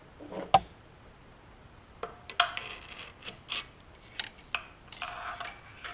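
Light metal clicks, clinks and scrapes as broken compression-release fragments are fished out of an open small-engine crankcase: one sharp click about half a second in, then a quick run of clinks and scrapes with a short metallic ring from about two seconds on.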